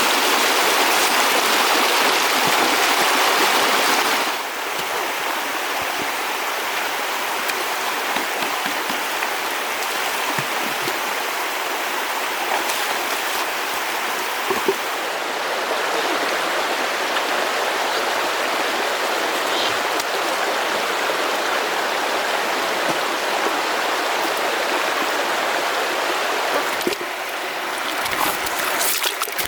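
Water rushing and flowing steadily, a dense even noise. It drops a little in level about four seconds in and changes again near the end.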